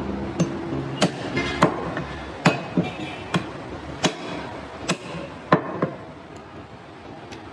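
Butcher's cleaver chopping goat meat and bone on a round wooden chopping block: about nine sharp chops at an uneven pace, stopping about six seconds in.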